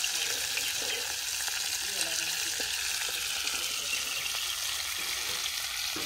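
Whole masala-coated lady fish frying in bubbling oil in a metal pan, with a steady sizzle. A metal spatula now and then scrapes and taps the pan as the fish are turned.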